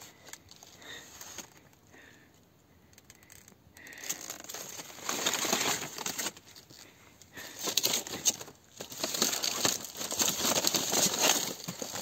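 Stiff bromeliad leaves rustling and crackling as a person pushes through them on foot. It starts about four seconds in and comes in two long stretches with a short pause between them.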